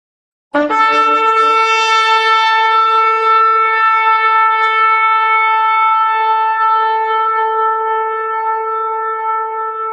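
A shofar blown in one long, steady blast. It starts abruptly about half a second in and holds a single pitch to the end, weakening slightly in the last few seconds.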